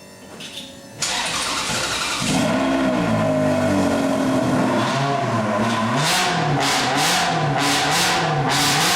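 A supercar engine firing up with a sudden loud catch about a second in, then revved over and over, its pitch rising and falling in quick, regular blips. From about six seconds in, each blip is joined by a sharp crackle.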